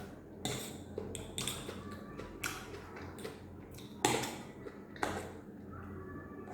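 Eating utensil clinking and scraping on a plate of egg hakka noodles: about six short knocks, the loudest about four seconds in, over a faint steady low hum.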